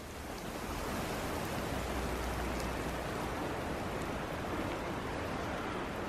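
Steady rain hissing on the forest's wet leaves, with a few faint drip ticks and a low rumble underneath.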